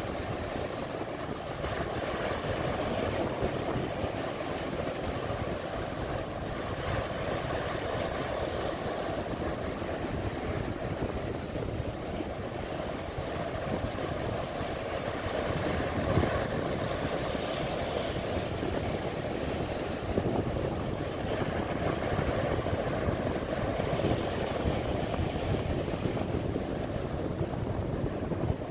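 Sea surf breaking and washing up a sandy beach in a steady, swelling rush, with wind buffeting the microphone.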